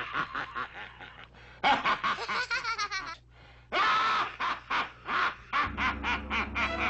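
Cartoon voices laughing in rapid, raspy, repeated bursts, with a low musical accompaniment coming in near the end.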